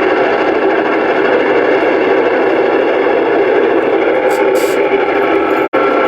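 Steady static and band noise from a President Lincoln II+ ten-meter radio's speaker while receiving, with a brief cut-out near the end.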